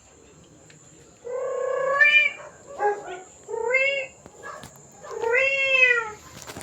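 Recorded cat meowing, played back as a sound effect: four meows, two of them long, the last rising and then falling in pitch.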